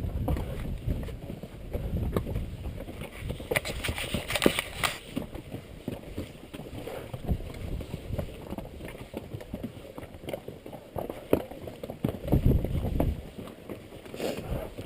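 Strong wind buffeting the microphone in gusts, with mule hooves clopping on the rocky trail.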